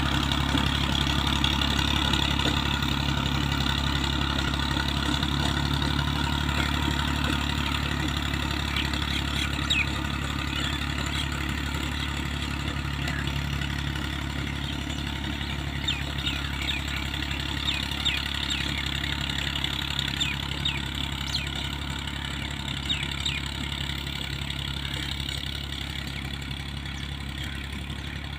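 Tractor diesel engine running steadily while working a rotavator, growing gradually quieter. Short high bird chirps sound over it through the middle and later part.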